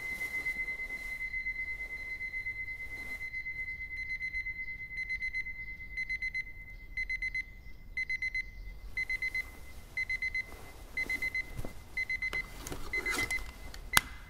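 Digital alarm clock beeping. A steady high-pitched tone breaks into bursts of rapid beeps about once a second and ends with a sharp click.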